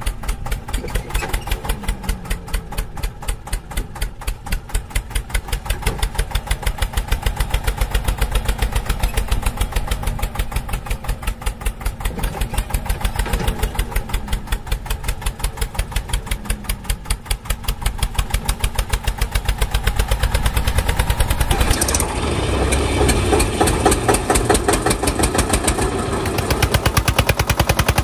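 Tractor diesel engine running with an even, fast chugging beat. About 22 seconds in it turns louder and rougher.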